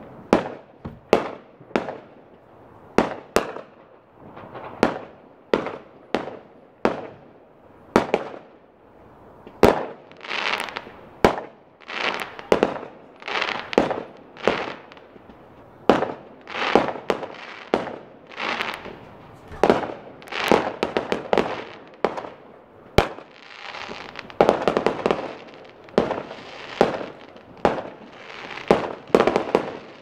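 Aerial fireworks bursting in quick succession: a continuous run of sharp bangs, roughly one or two a second, many with short echoing tails.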